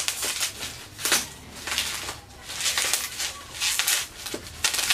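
Plastic bubble wrap crinkling and rustling in repeated bursts, about one a second, as a box is pulled out of it.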